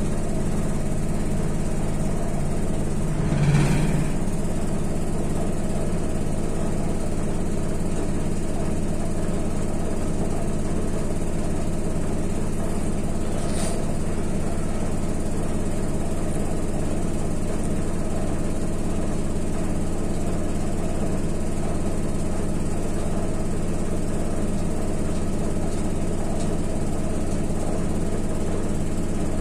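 Whirlpool washing machine running with a steady, even motor hum in the last minute of its programme. There is one brief louder thump about three and a half seconds in.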